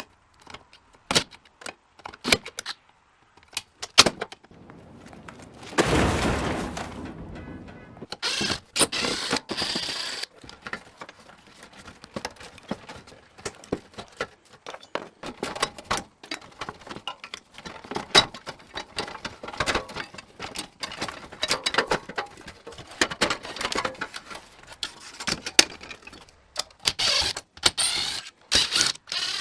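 Metal parts and hand tools clinking, knocking and scraping while a power converter is taken apart for scrap. There is a rapid, irregular run of sharp clicks throughout, with a louder rasping noise lasting about a second, about six seconds in.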